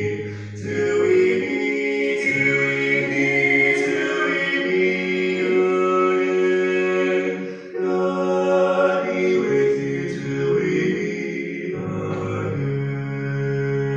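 Slow church hymn music with singing voices over long held chords that change every second or two.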